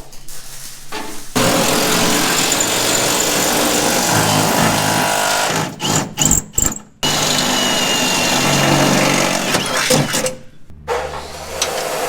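Power tool running in two long, loud bursts, with a few sharp knocks in the short break between them, then a lower steady hum near the end.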